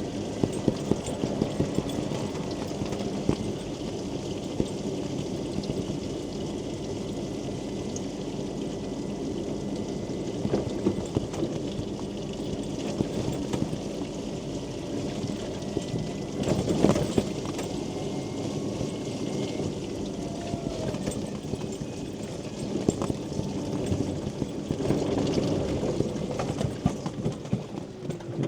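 Heavy rain pattering on a mobility scooter's canopy as the scooter rides along: a dense, steady patter of drops with irregular louder taps.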